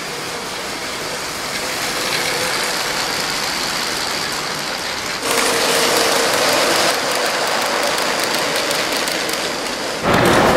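LEGO train running on plastic LEGO track: a steady mechanical whirr and rattle of the small electric motor and wheels. About five seconds in it gets louder as a train passes close, with a run of faint regular clicks from the wheels over the track.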